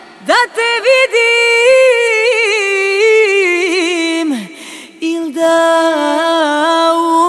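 Solo female voice singing a Serbian folk song a cappella, the band silent: a long ornamented phrase with vibrato that slides down at its end about four seconds in, then after a short breath a second phrase on a steady held note.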